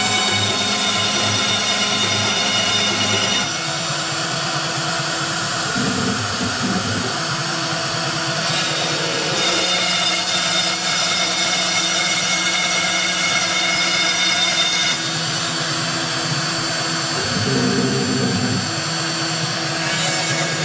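Homemade three-axis CNC router cutting lettering: a steady high-pitched motor whine with its axis motors humming underneath. The tones shift every few seconds as the machine changes moves.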